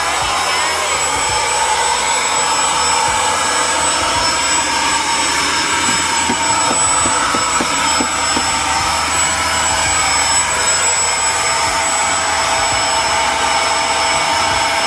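Vacuum-cleaner motor running steadily: a loud rush of air with a steady high whine over it.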